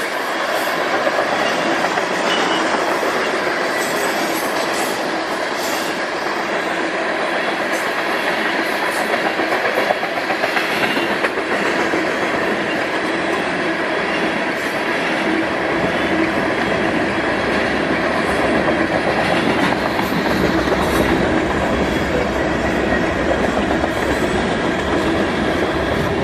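Freight train of Norfolk Southern covered hopper cars rolling past steadily, the steel wheels running on the rails in a continuous noise that grows deeper about halfway through.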